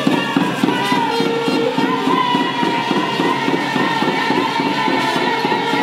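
Live Mapuche purrun dance music: a quick, steady drum beat with rattles shaken along, and long held high notes over it.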